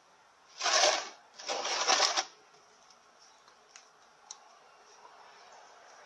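Hand ratchet with a 10 mm Allen socket clicking in two quick runs, about a second in and again just after, as the drain plug of a ZF6HP26 automatic transmission's oil pan is undone. A few light clicks follow.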